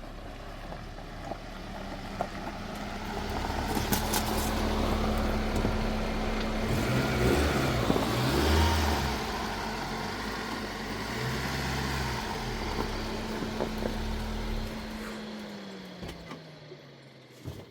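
A motor vehicle's engine running nearby, growing louder toward the middle and then fading, its engine note dropping near the end.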